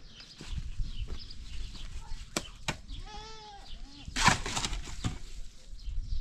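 A goat bleats once, about three seconds in, among a few sharp knocks. A loud rustling, flapping burst follows about a second later.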